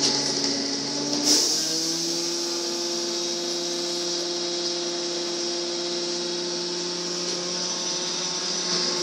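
Škoda 15TR trolleybus's electrical equipment humming steadily with a hiss above it while the trolleybus stands still. About a second in there is a click, and the hum steps slightly higher in pitch.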